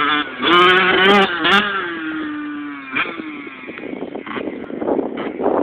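Yamaha YZ85 two-stroke dirt bike engine revving up in two or three quick bursts near the start, then holding a steady note that slowly drops in pitch and grows fainter as the bike moves away.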